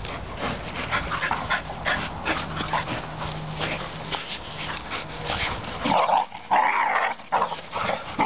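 Three dogs, a standard schnauzer, a bull terrier and a black Lab, play-fighting: rapid scuffling and snapping, with loud bursts of dog vocalizing in the last couple of seconds.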